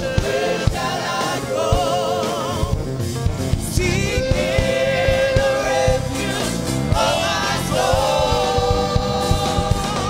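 Gospel music: singing with held, wavering notes over a steady drum beat.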